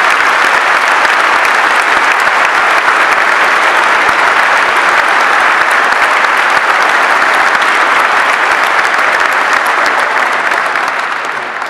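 A large audience clapping steadily and loudly. The applause dies away near the end.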